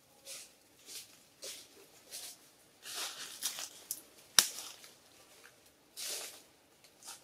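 Dry leaf litter crackling and rustling in short separate bursts, about every half second to a second, as monkeys move over it, with one sharp snap about four seconds in.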